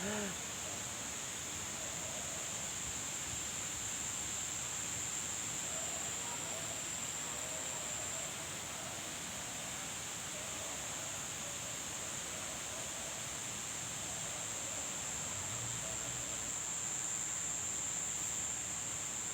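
Steady high-pitched drone of insects (crickets or cicadas) calling without a break, over an even background hiss.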